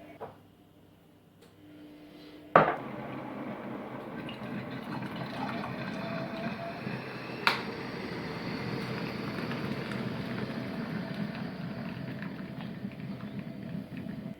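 Coffee being made: a sharp click about two and a half seconds in, then hot liquid bubbling and pouring steadily, with another click partway through, cutting off suddenly near the end.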